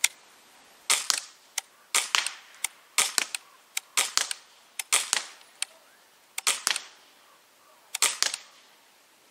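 Daisy Model 74 CO2 BB rifle fired about ten times, roughly one shot a second. Each shot is a sharp pop with a second crack close behind, the BB striking the cardboard target box.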